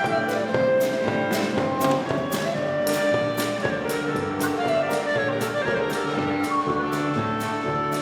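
Klezmer ensemble playing a lively sirba dance tune, with violin, clarinet, piano, acoustic bass and percussion. The melody runs over a steady, quick beat.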